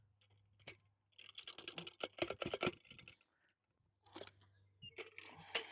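Golf-green hole cutter crunching and scraping in turf and soil, with a run of small crunches about a second in and another cluster near the end.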